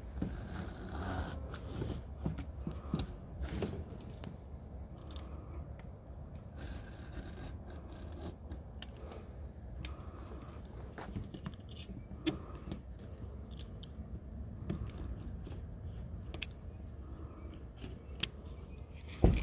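Scissors snipping and scraping along the edge of a screen door frame as excess screen mesh is trimmed, heard as a series of small irregular clicks, with one sharp click near the end.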